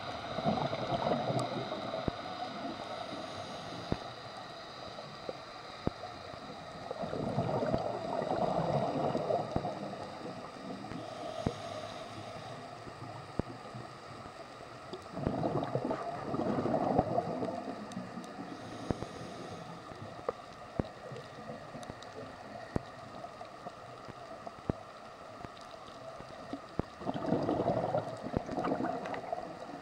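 Scuba diver breathing through a regulator underwater: exhaled bubbles gurgle in four bursts a few seconds long, with a fainter hiss of inhalation between them. Scattered sharp clicks throughout.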